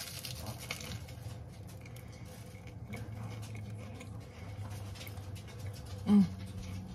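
A person biting into and chewing a bacon, egg, lettuce and tomato sandwich: soft crunching and small mouth clicks, with a short hummed 'mm' about six seconds in.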